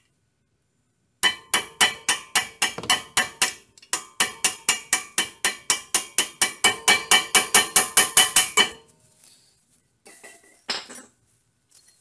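Small hammer tapping a steel pin punch to drive a brake-pad retaining pin into a Brembo brake caliper: quick, ringing metal-on-metal taps about five a second, a short run, a brief pause, then a longer run, with one softer knock a little after.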